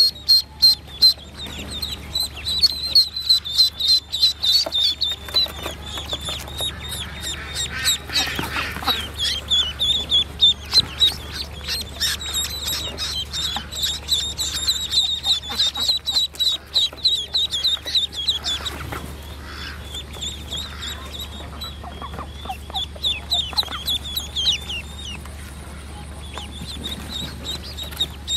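Ducklings peeping: rapid, high-pitched calls repeated about three times a second, thinning out near the end.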